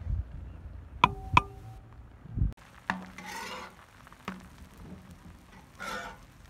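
A spatula knocks twice on the rim of a large cooking pot of minced chicken and egg, ringing briefly. Then a spatula taps and scrapes across a flat griddle, twice in longer strokes, as flatbreads are lifted and turned.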